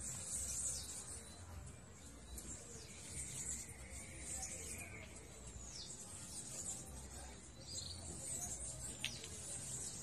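Several birds chirping and calling in the trees: many short high chirps and a few downward-sweeping calls, over a steady low rumble.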